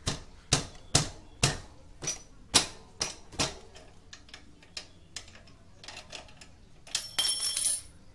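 A run of sharp metal taps, about two a second, from hand work on a Honda GL Pro motorcycle's rear wheel hub. After about three and a half seconds they thin to scattered faint clicks, and a short hissing burst comes near the end.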